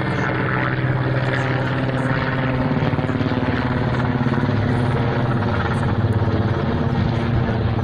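Mil Mi-8 military helicopter flying overhead, its five-blade main rotor beating rapidly and evenly over a steady low engine hum.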